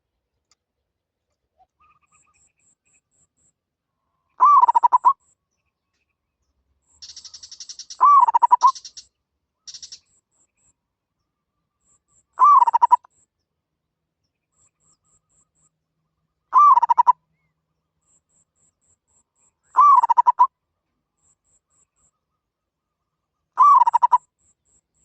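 Zebra dove cooing: six short, rapidly pulsed coos spaced about four seconds apart, each rising then falling in pitch. A fainter, high scratchy chatter runs around the second coo.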